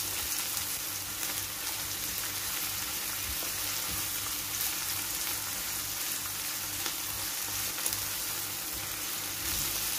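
Diced beef, onion and chopped peppers sizzling in oil in a nonstick frying pan while being stirred with a silicone spatula: a steady frying hiss with a few faint scrapes.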